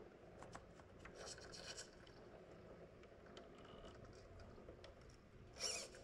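Faint scraping and clicking of a Redcat Ascent RC rock crawler's tyres and chassis working over rocks, with a brief louder scrape near the end.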